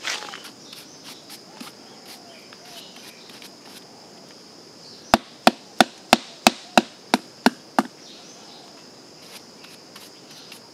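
A knife chopping at the stem of a freshly harvested jackfruit: about nine quick strikes, roughly three a second, from about halfway in. Insects buzz steadily in the background.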